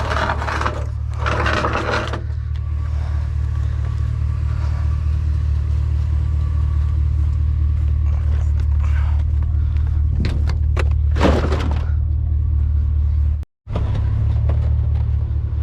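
A motor vehicle's steady low running rumble, with a few brief scrapes over it near the start and again about ten to eleven seconds in. The sound cuts out for a moment near the end.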